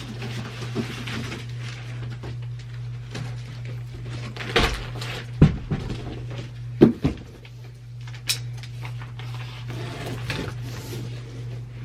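A few dull knocks and bumps of things being handled, clustered around the middle, followed by a single sharp click, over a steady low hum.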